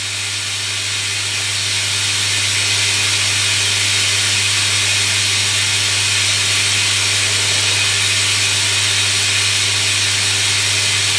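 Hoover Electronic A3172 washing machine running through its cottons programme at the rinse stage: a steady low hum under an even watery hiss, growing a little louder over the first few seconds and then holding.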